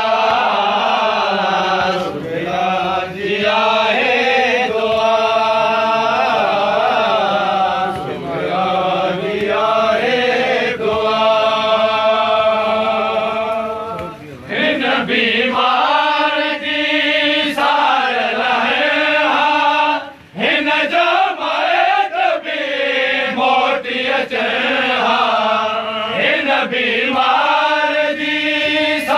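Group of male voices chanting a Sindhi noha, a Shia mourning lament, in unison. The chant is continuous, with two short breaks about halfway and two-thirds through.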